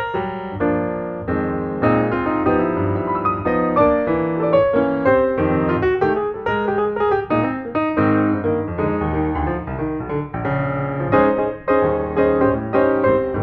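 Piano music, a run of played notes with no speech.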